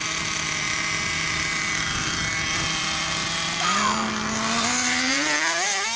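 Twin engines of a custom XTM XLB radio-controlled buggy running at a steady idle, then revving up in pitch about three and a half seconds in and climbing unevenly toward the end.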